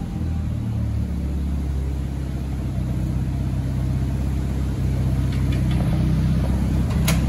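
Volvo 240 Turbo's B21FT four-cylinder turbo engine idling steadily on the dyno after a pull, with a single sharp click about seven seconds in.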